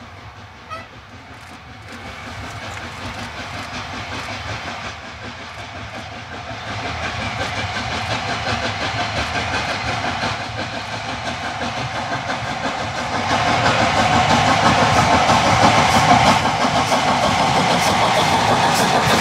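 LNER A4 Pacific No. 60007's three-cylinder steam exhaust beating rapidly as the locomotive approaches under steam, growing steadily louder.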